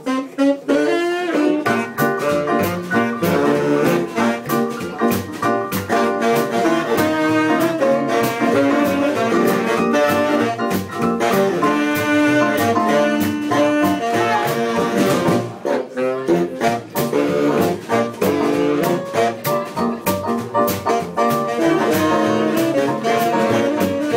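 Small jazz band playing live: tenor and baritone saxophones and clarinet over piano and drums keeping a steady beat.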